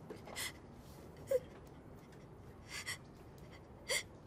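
A girl crying quietly: four short gasping sobs about a second apart, two of them with a brief whimper.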